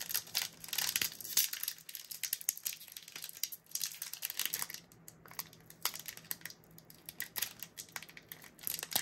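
Foil wrapper of a Pokémon TCG booster pack crinkling and crackling in irregular bursts as it is handled and pulled at, a pack that resists being torn open.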